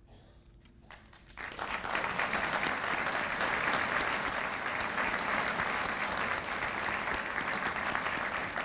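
A large audience applauding, with steady massed hand-clapping that starts about a second and a half in, after a short quiet.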